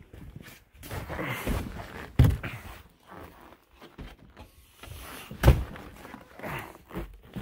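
Boots stepping across a snow-covered wooden deck in an irregular run of thuds and crunches. Two sharper, heavier thumps stand out, one about two seconds in and one about five and a half seconds in.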